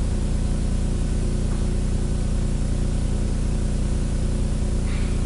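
Steady low hum with an even hiss over it, the background noise of an old film soundtrack. It holds level throughout, with nothing else standing out.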